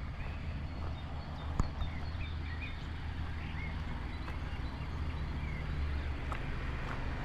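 Outdoor street ambience: a steady low rumble with small birds chirping over it and a few sharp clicks, the clearest about one and a half seconds in.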